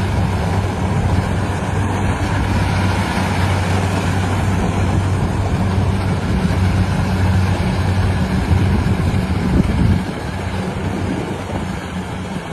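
Engine of a rice harvesting machine running steadily with a low hum, easing a little about ten seconds in.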